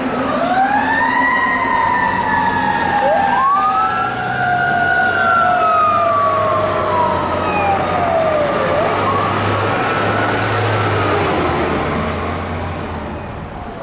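Fire engine siren wailing: a tone that rises quickly and then slowly falls, with a second wail rising over it a few seconds in and winding up again later, fading near the end. A low steady hum runs underneath.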